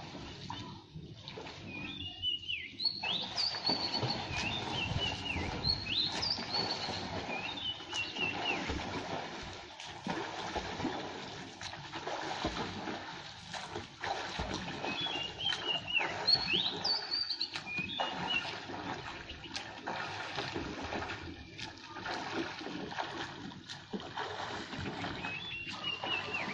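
Steady wash of pool water noise with light splashing from a swimmer doing freestyle. A bird calls several times in short phrases of quick sliding, chirping notes.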